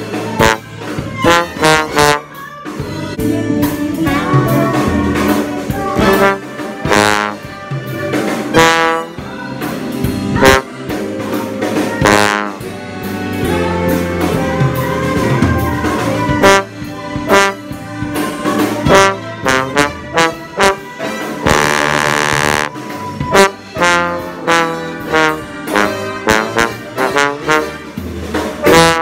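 Big band playing a jazz chart, with a bass trombone close in front playing short punchy accents and held notes over the ensemble and drums.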